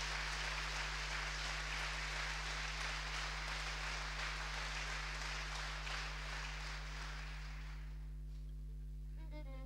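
Audience applauding, dying away about eight seconds in over a steady low electrical hum; near the end the band's strings begin to play.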